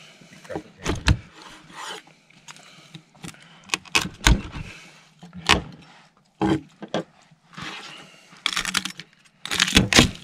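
Knife slicing through spit-roasted pork and its crackling on a wooden cutting board: irregular sharp knocks of the blade hitting the board with scraping and crunching between them, busier near the end.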